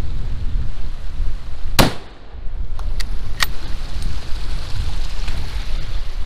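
Wind buffeting the camera's microphone as someone walks over stream boulders, with a sharp knock about two seconds in and two lighter clicks about a second later.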